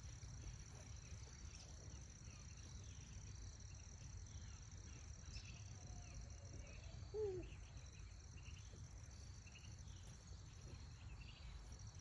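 Quiet outdoor ambience: insects giving a steady high-pitched drone over a low rumble, with one short pitched call that bends up and down about seven seconds in.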